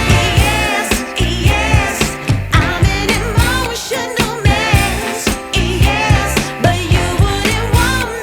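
Background pop music with a steady beat and a singer's voice.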